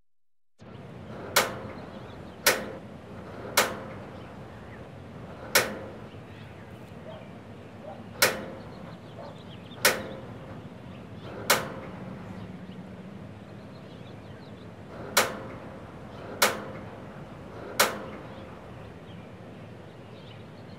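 A gas grill's push-button spark igniter clicking about ten times at uneven intervals, each a sharp snap with a brief ring, over a faint steady background hiss.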